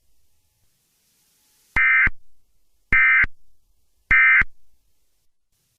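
Emergency Alert System end-of-message signal: three short bursts of digital SAME data tones, a little over a second apart, marking the close of the alert.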